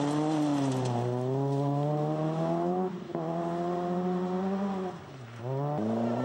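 Rally car engines running at high revs. The pitch climbs steadily through a gear, dips briefly about halfway, then falls away before another car's engine rises in near the end.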